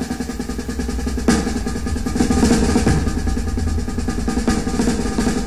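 Music led by drums: a continuous drum roll over sustained low notes, with a stronger hit about a second in.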